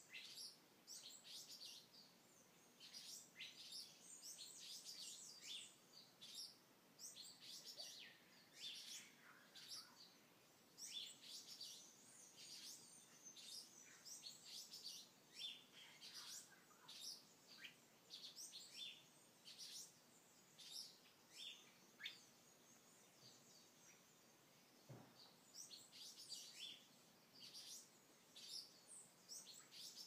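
Faint night chorus of tropical jungle animals: many short, high chirps and calls overlapping, several a second, over a low steady hiss.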